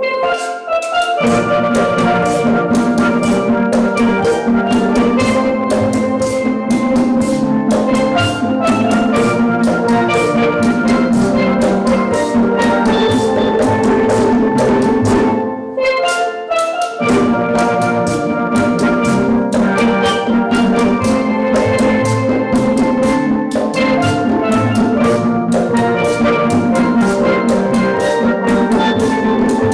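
Steel drum band playing a lively piece: many quick, ringing steelpan notes over a bass and drum beat. The bass drops out briefly about halfway through, then comes back.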